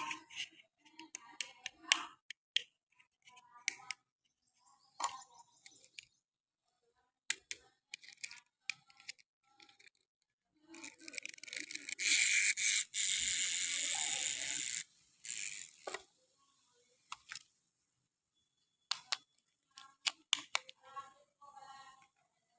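Clicks, taps and rustles of a plastic toy gun and its packaging being handled. Midway comes a loud, steady hiss-like noise lasting about three seconds that stops suddenly.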